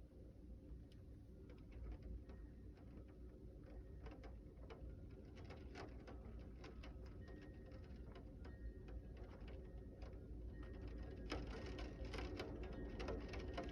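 Scattered raindrops ticking on a hard surface, coming faster and a little louder toward the end, over a low steady rumble.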